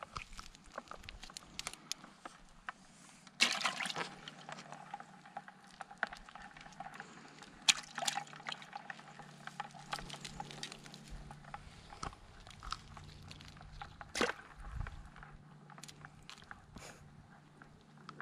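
Live yabbies being handled in a wet wire-mesh drop net: scattered wet clicks, scrapes and rustles of shells and mesh, with a few sharper knocks.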